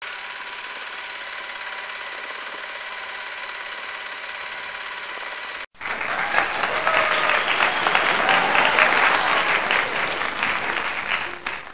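A crowd clapping and cheering, with a few whistle-like cries, starting about six seconds in and cut off at the end. Before it comes a steady hiss with faint held tones.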